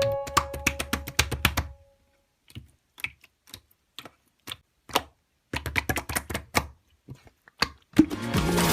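A run of sharp clicks and taps at uneven spacing, like typing on keys. Background music fades out at the start and music comes back in near the end.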